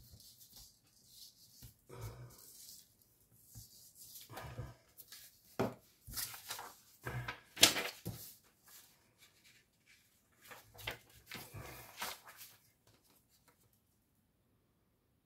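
Irregular handling noises: soft rustles, light taps and clicks at an uneven pace.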